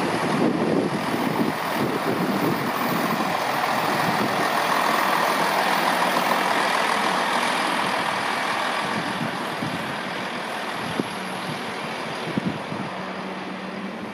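East Midlands Trains Class 158 diesel multiple unit running past and away: a steady rush of diesel engine and wheel-on-rail noise, loudest about halfway through and slowly fading, with a few sharp clicks near the end.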